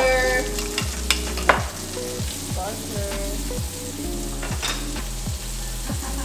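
Butter melting and sizzling in a nonstick frying pan, with sausages frying in the pan beside it. A couple of sharp clicks come between one and two seconds in.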